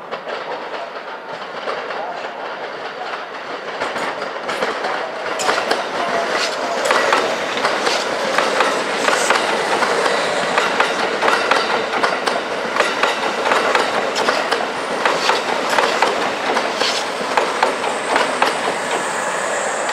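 A Kintetsu electric train running through the station's pointwork, its wheels clacking steadily over the rail joints and turnouts. The sound grows louder over the first several seconds as the train comes near.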